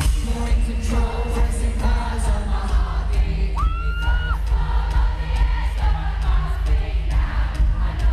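Live pop song played loud through an arena PA, bass-heavy, with male singing and a crowd screaming along. About halfway through, a single high held note cuts through for under a second.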